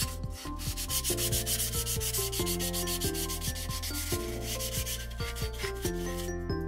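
Hand wet-sanding with 600-grit wet sandpaper on a wooden spatula's cured urushi lacquer coat: repeated quick rasping strokes of the wet paper rubbing back and forth over the surface, grinding the dried lacquer smooth between coats.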